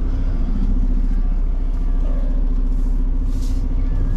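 Semi truck's diesel engine running steadily at low speed while backing a trailer, with a brief hiss about three seconds in.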